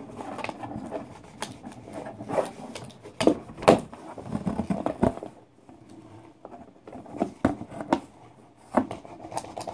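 Cardboard shipping box being opened by hand: flaps pulled back and handled, with rustling and irregular sharp knocks and clicks, the loudest about three seconds in and again near the end.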